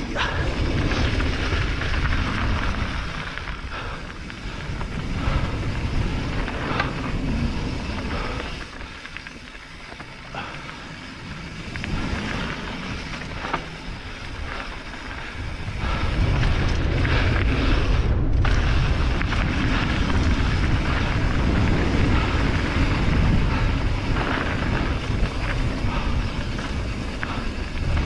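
Mountain bike descending a dry dirt trail: tyres rolling and crunching over dirt and loose stones, with wind buffeting the action-camera microphone. The low rumble eases off about a third of the way in and turns heavier and steadier from a little past halfway.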